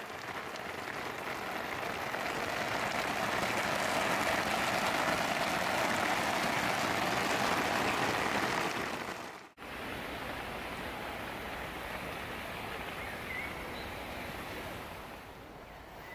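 Steady rain falling, an even hiss that swells over the first few seconds, drops out abruptly about halfway through, then carries on more quietly.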